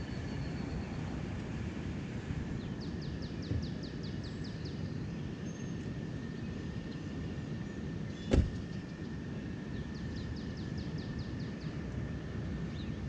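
A sedan's driver door slams shut with a single solid thump about eight seconds in, over a steady low background rumble. A bird trills twice, in rapid series of high chirps.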